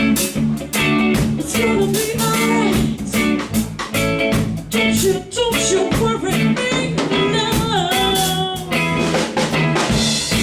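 Live band playing a reggae groove on drum kit, bass and guitar in steady, evenly spaced strokes. A sung or lead-guitar melody line glides in pitch near the end.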